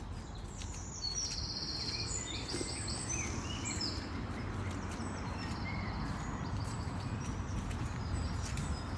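Woodland songbirds chirping and singing, with a fast high trill about a second in and most of the calls in the first half, over a steady low rumble.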